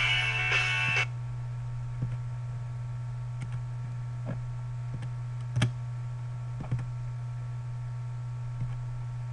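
A guitar song playing from a web audio player stops abruptly about a second in, leaving a steady low hum broken by a handful of short, scattered clicks from a computer mouse, the loudest just past halfway.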